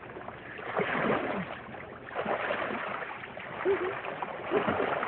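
Pool water splashing and sloshing in uneven surges, with faint voices in the background.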